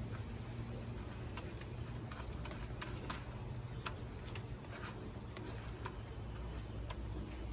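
Gloved hands spreading wet Satanite refractory mortar over a clay chimenea: faint, scattered, irregular clicks and taps over a steady low background rumble.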